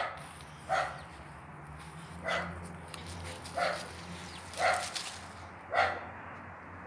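A dog barking repeatedly, six short barks about a second apart.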